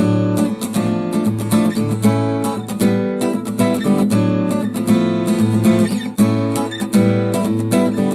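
Samsung Galaxy ringtone played on acoustic guitar: a steady run of plucked and strummed notes with no pause.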